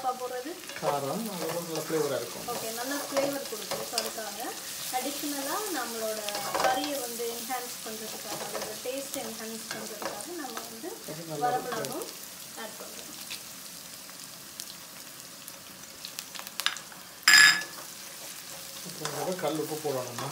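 Onions, green chillies, curry leaves and dried red chillies sizzling in hot oil in a metal kadai while being stirred and tossed. About seventeen seconds in there is one short, loud metallic clang, the loudest sound.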